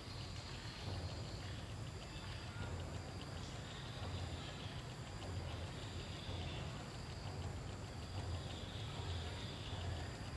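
Forest ambience: insects chirping in a faint, fast, even pulse, over a steady low rumble that swells and fades.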